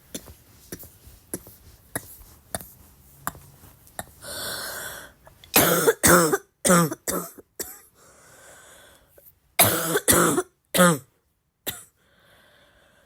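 A person coughing in two fits of several short voiced coughs each, with a long breath drawn in before the first fit and shorter breaths between. Faint clicks come before the coughing starts.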